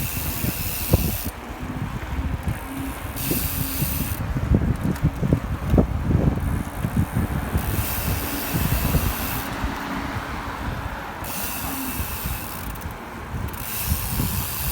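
Wind buffeting the microphone while riding, with a steady high hiss that cuts out and returns several times.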